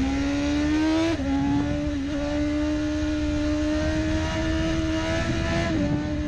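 BMW S1000RR's 999cc inline-four engine at high revs under hard acceleration, heard from on the bike with wind rush. The engine note climbs, drops with an upshift about a second in, climbs slowly again, then drops with another upshift near the end.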